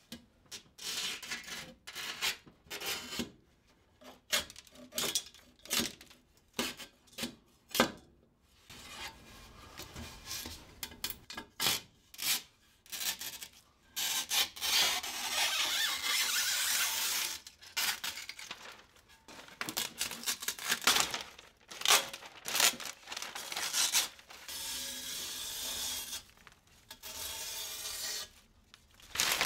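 Knife blade slicing through the taut screen-printing mesh along the inside of an aluminum frame, in many short strokes. About halfway through, the mesh is torn away from the frame in a long rip, and there is another long rip near the end.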